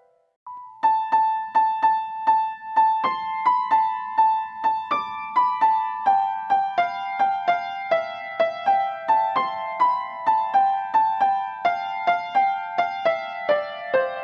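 Background music: a piano or electric-piano melody of evenly paced single notes, starting after a brief pause near the beginning.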